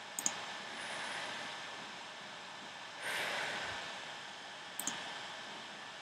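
Two sharp computer mouse clicks, one just after the start and one near the end, with a breathy sigh into the microphone a little after three seconds in, over steady microphone hiss.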